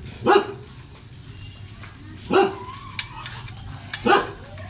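A dog barking, three short barks about two seconds apart, with a few faint clicks in between.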